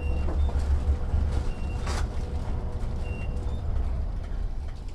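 Fart sound effect played as a prank: a long, low, rumbling fart noise that trails off after about two seconds.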